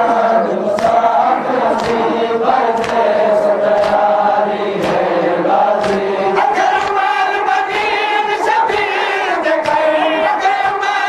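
A crowd of men chanting a noha, a Shia mourning lament, in unison, with sharp slaps of chest-beating (matam) about once a second that come faster near the end.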